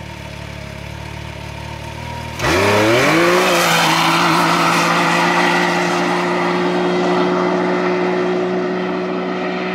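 Stock Can-Am Maverick X3's turbocharged three-cylinder engine idling, then about two and a half seconds in launching at full throttle from a standstill on dirt: the revs sweep up within about a second and then hold at one steady pitch as the CVT takes over while the machine pulls away. The tires spray dirt, and the sound grows slightly fainter as it drives off.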